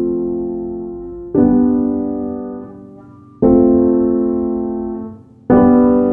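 Background piano music: slow chords, each struck and left to ring and fade before the next one comes about every two seconds.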